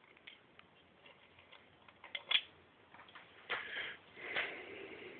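Light metallic clicks and handling as a piston ring is worked out of an engine's cylinder bore, with one sharper click about two seconds in. Near the end come two short scraping sounds.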